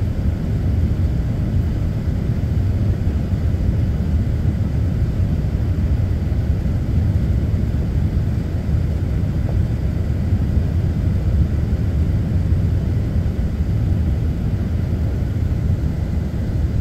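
Airliner cabin noise heard from inside the passenger cabin on final approach: a steady, low rumble that holds unchanged throughout.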